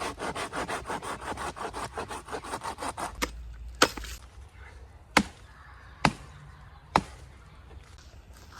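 Hand saw cutting into a log with fast back-and-forth strokes, the kerf for a Swedish log stove. The sawing stops after about three seconds and is followed by five sharp wooden knocks about a second apart.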